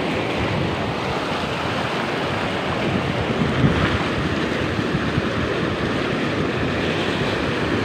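Swollen, muddy floodwater rushing and churning over rocks in a steady, loud rush.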